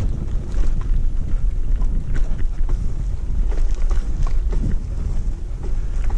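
Wind buffeting the microphone in a loud, steady low rumble, with scattered short clicks and rustles over it.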